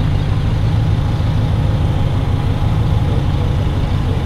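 Steady low rumble of wind buffeting the handheld camera's microphone outdoors, without a break.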